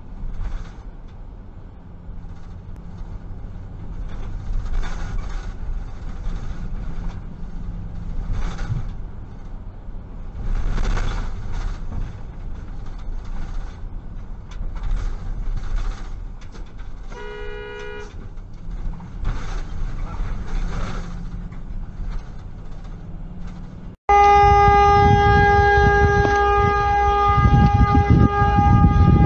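Low, steady road rumble heard from inside a moving car, with scattered hissy swells and a brief horn beep about two-thirds of the way in. Then, after an abrupt cut, a vehicle horn blares loudly and continuously over a low rumble.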